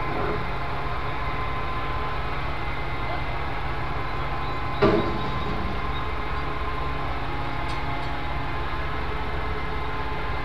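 Steady low mechanical rumble with faint steady whine tones, and one sharp knock about five seconds in.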